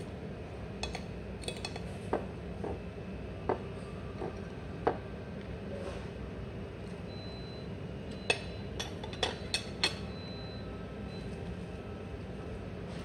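Metal knife and fork clinking and scraping on a ceramic plate while cutting up sausage and bacon: scattered single clinks, then a quick run of louder clinks about eight seconds in. A steady low restaurant hum runs underneath.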